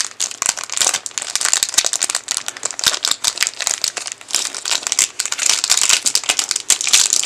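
Wrapper of a 1992-93 Topps Stadium Club basketball card pack crinkling steadily as it is handled and the cards are worked out of it.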